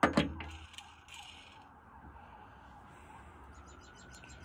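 Toy cap gun firing a cap: a sharp pop right at the start, with a second crack a fraction of a second later, dying away within about a second.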